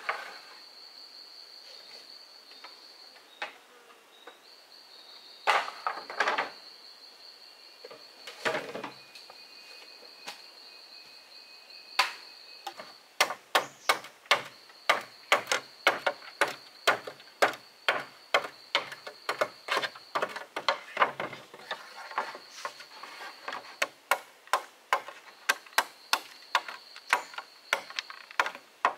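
Knife blade chopping into split green bamboo: a few scattered knocks early on, then from about halfway a quick steady run of sharp knocks, two to three a second. An insect buzzes in a high thin tone behind it, stopping and starting.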